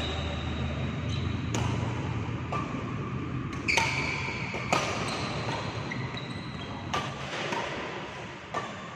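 Badminton rally: a shuttlecock struck back and forth with rackets, sharp hits coming roughly once a second, each with a brief ring after it.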